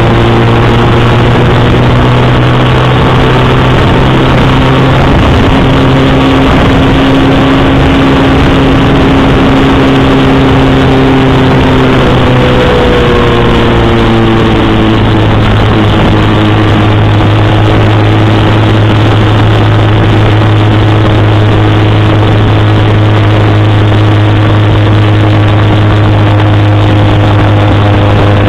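Motorcycle engine running steadily at road speed, loud and close to the microphone, its pitch dropping a little about halfway through.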